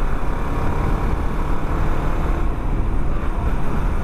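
Yamaha R15 V2 motorcycle cruising at a steady speed: its single-cylinder engine running evenly under the constant rush of riding, with no gear change or rev change.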